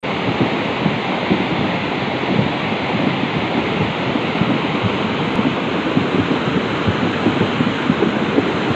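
Ourika river in flash flood after heavy thunderstorm rain: muddy floodwater rushing past in a loud, steady, churning torrent.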